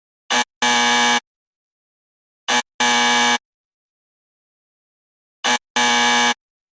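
Wrong-answer buzzer sound effect, the game-show 'eh-ehhh': a short buzz followed at once by a longer one of about half a second, played three times with silence between. It signals an incorrect answer.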